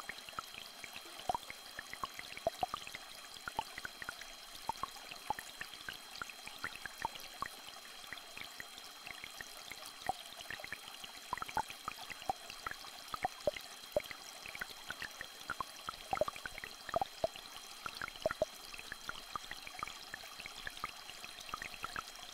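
A small stream trickling, with many quick water plinks and drips, under two steady high-pitched tones.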